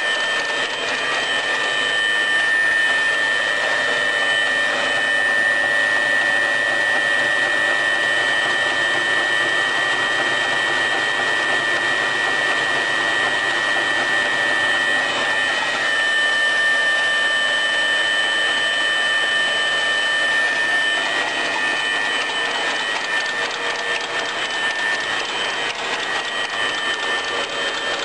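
Welding electrode wire cutting machine running steadily: a constant high whine over a fast, dense mechanical clatter.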